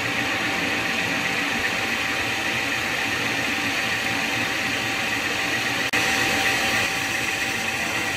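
Victor metal lathe running and cutting a recess into the face of a machine foot with a carbide insert tool: a steady cutting noise over the machine's running sound, with a faint steady whine. A click about six seconds in, after which it is a little louder.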